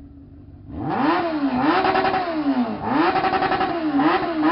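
Motorcycle with a straight-through exhaust idling, then revved hard about four times in a row, the pitch climbing and dropping back with each blip of the throttle.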